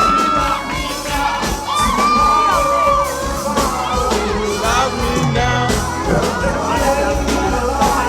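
Music with singing over a steady beat, with a crowd whooping and shouting along.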